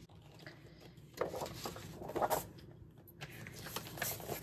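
Paper and packaging being handled and rustled, in a few short bursts.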